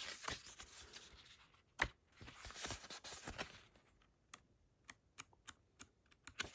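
Soft paper rustling and light ticks from a booklet being handled and its pages turned, with one sharper tap a little under two seconds in.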